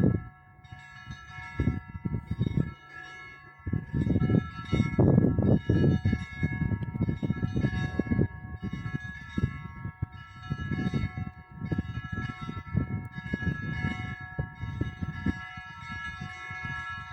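Russian Orthodox cathedral bells ringing: many bells sounding together in a continuous peal, their tones overlapping and sustaining. An irregular low rumble surges underneath, loudest a few seconds in and again near the middle.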